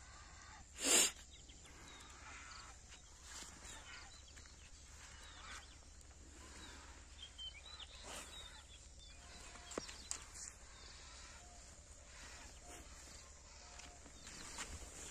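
Quiet lakeshore ambience with faint, scattered bird chirps and a few small clicks. A short, loud rushing noise comes about a second in.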